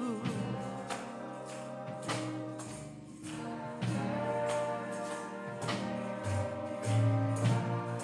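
Gospel church music: sustained keyboard chords over a bass line with a steady percussion beat. A singer's held, wavering note trails off just after the start.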